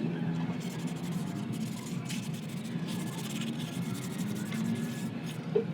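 Hand rubbing and scraping, cleaning rust off a car brake part.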